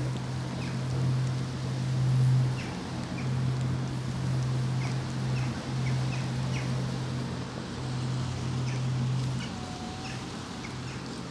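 Birds chirping now and then over a steady low hum. The hum breaks off briefly a couple of times and drops away near the end.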